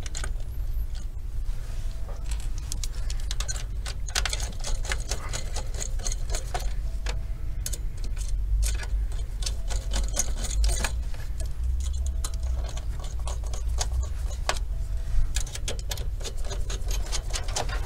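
Screwdriver driving the CPU cooler's mounting screws down into the motherboard bracket: irregular small metallic clicks and ticks of tool, screws and cooler throughout, over a steady low hum.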